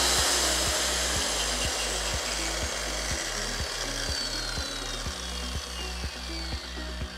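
Corded Makita circular saw's blade coasting down after the trigger is released, its whine slowly falling in pitch and fading. It is slow to stop because the saw has no blade brake.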